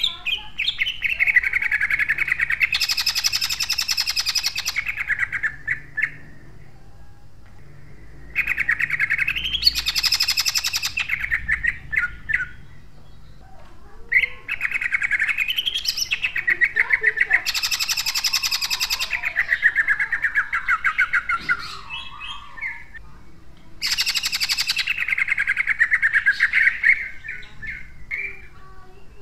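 Caged cucak ijo (green leafbird) singing loud, harsh, rapid-fire bursts of song. It comes in four long bouts, each a fast run of tightly packed repeated notes, with short pauses between.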